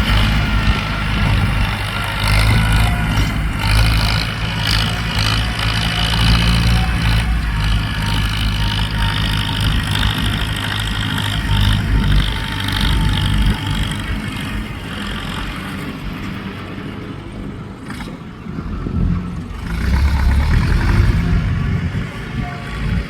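Ford 6640 four-wheel-drive tractor's diesel engine running steadily under load while working soil, its level easing off in the middle and rising again near the end.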